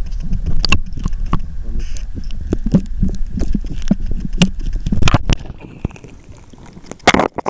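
Muffled underwater rumble from a camera held below the water surface, with many small clicks and knocks of water and handling against the camera. About five seconds in the camera comes out of the water and the sound drops to a quiet hiss, then a short loud burst of noise comes near the end.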